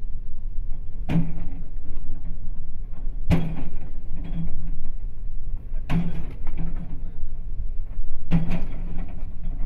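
Excavator bucket striking the asphalt four times, about every two and a half seconds, each hit followed by a short low hum, over the steady low running of the excavator's engine.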